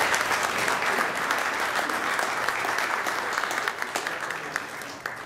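A small audience applauding, a dense patter of individual hand claps that fades out near the end.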